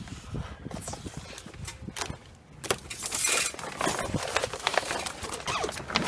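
Shrink-wrap plastic sheeting rustling and crackling as it is handled, with scattered knocks; it grows louder from about halfway through.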